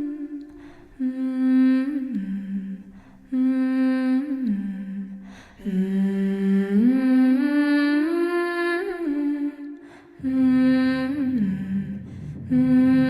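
Background song: a wordless hummed vocal melody in short phrases, each holding a note and stepping to others, with brief gaps between them.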